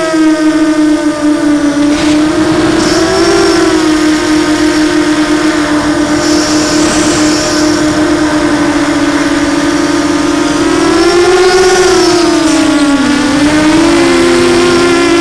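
Blackout Mini H quadcopter's brushless motors and propellers whining steadily, heard close from the onboard camera. The pitch rises about two-thirds of the way through, then dips briefly as the throttle changes.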